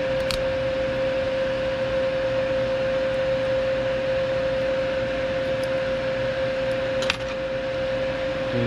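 A steady machine hum with one constant mid-pitched tone over a hiss, like a small fan or motor running. Two light, sharp clicks come through it, one just after the start and one near the end.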